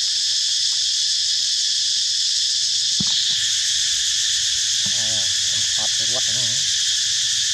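Steady, high-pitched drone of an insect chorus. A sharp click comes a little before halfway, and a few short, wavering calls follow a little past halfway.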